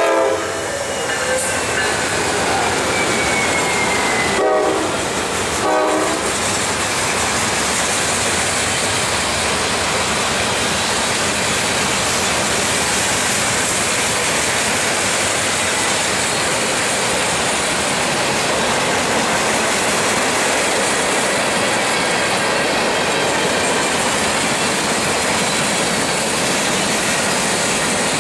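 Norfolk Southern freight train passing close, led by GE diesel locomotives. The locomotive horn sounds near the start and again briefly about four and six seconds in, then the steady noise of the freight cars rolling past over the rails fills the rest.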